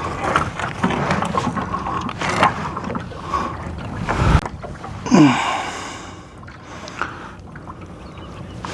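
Wind noise on the microphone with handling clicks of fishing gear being worked. A low thump comes about four seconds in, followed by a brief rushing sound.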